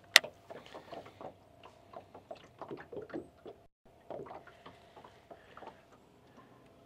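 Small irregular slaps and taps of water lapping against the hull of a fiberglass bass boat, with one sharp click about a quarter second in and a faint steady hum underneath.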